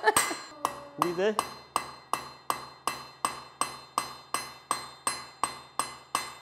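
Hand hammer striking a red-hot iron rod on a steel anvil in a steady rhythm of nearly three blows a second, each blow followed by a short metallic ring from the anvil. This is a nail being forged, its point drawn out under the hammer.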